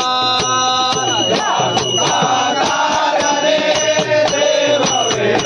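Men singing a Marathi abhang (devotional song) in a bhajan style. The voice holds a note in the first second, then moves through a bending melody. Sharp percussion strikes keep a beat of about two a second, with a high metallic ringing between them.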